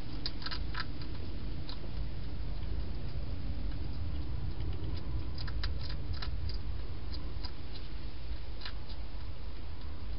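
Wild hedgehog feeding at bowls inside a plastic feeding station: scattered small clicks and crunches in short clusters, over a steady low hiss.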